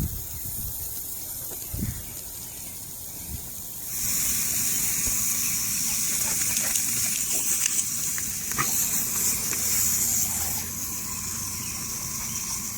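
Lawn sprinkler spraying water with a steady hiss that grows louder about four seconds in and eases a little near the end.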